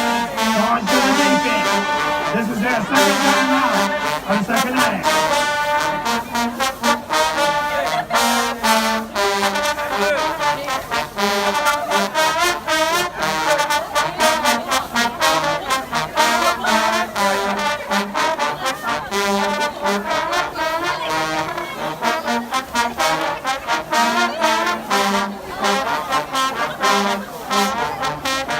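Marching band playing loud brass, trombones and trumpets, over a steady pounding of drums.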